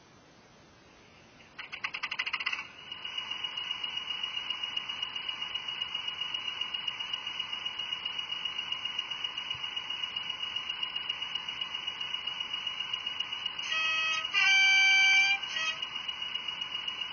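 Sound-fitted model diesel locomotive's recorded engine sound through its small onboard speaker: a brief rattle of rapid clicks as the engine starts, then a steady pulsing idle. Near the end a loud two-tone horn sounds for under two seconds, and then the idle carries on.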